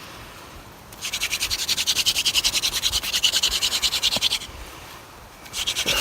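Hand-drill spindle spun back and forth against a wooden fireboard, a fast, even scratching of many strokes a second while the drill is worked toward a coal. It stops twice for about a second, once at the start and once past the middle.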